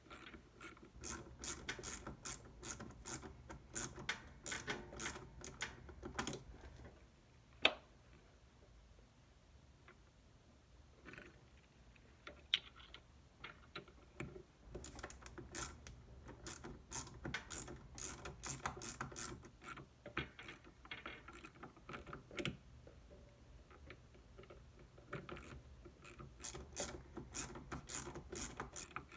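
Hand ratchet wrench clicking in quick runs as bolts are worked loose on a mini chopper's engine, in three spells with pauses between. A single sharp knock stands out about eight seconds in.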